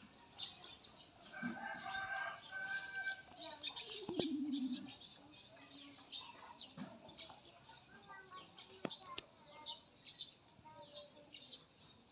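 Outdoor birdsong: small birds chirping repeatedly, with a chicken calling from about a second and a half in, ending in a falling note around four seconds in that is the loudest sound. A single sharp click near nine seconds in.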